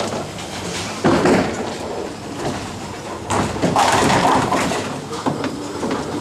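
Bowling alley din: bowling balls rumbling down the lanes and pins crashing, with a sudden loud clatter about a second in and a longer one from about three to four and a half seconds in.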